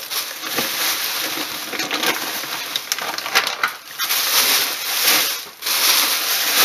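Plastic bubble wrap crinkling and rustling as it is handled and pulled apart by hand, a dense run of small crackles close to the microphone.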